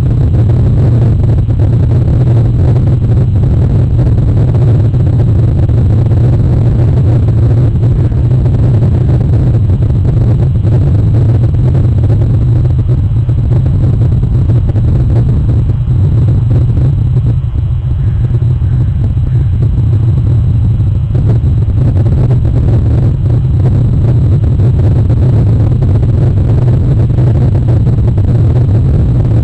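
A loud, steady low rumble, deepest in the bass, with no distinct events and a slight dip about halfway through.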